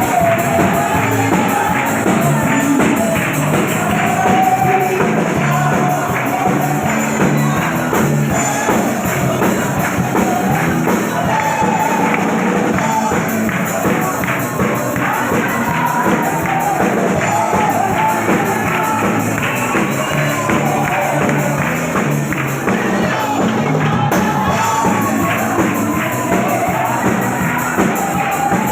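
Pentecostal worship music: voices singing an upbeat hymn over a tambourine shaken and struck in a fast, steady rhythm.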